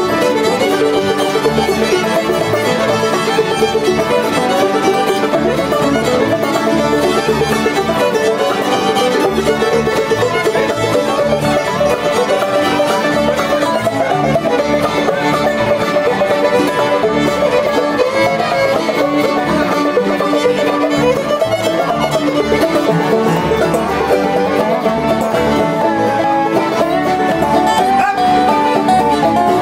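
Live old-time string band: a fiddle bowing the melody over clawhammer banjo, with mandolin and resonator guitar, playing steadily without a break.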